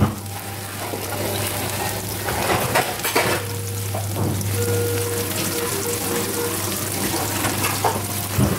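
Thick dried-shrimp, garlic and chili sauce bubbling and sizzling in a frying pan as chopsticks stir in chopped scallions, over a steady low hum.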